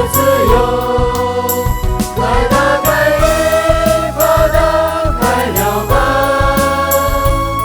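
Contemporary Christian worship music: a slow melody of long held notes, with choir-like voices, over a band with bass and a steady drum beat.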